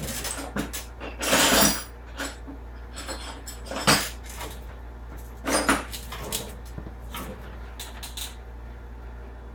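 Irregular metal clanks and knocks from hand tools working on a steel ball joint rivet, with three louder strikes about a second and a half, four and five and a half seconds in.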